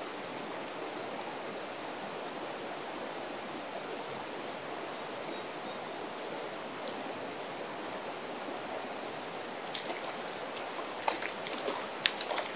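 Steady rush of a shallow river running over rocks, with a few short, sharp splashes about ten seconds in and again near the end from a hooked fish thrashing at the surface.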